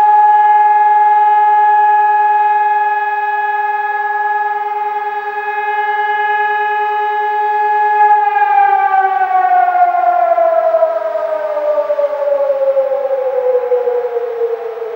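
Civil-defence warning siren sounding a steady tone. About eight seconds in it starts winding down, its pitch falling steadily as the rotor slows.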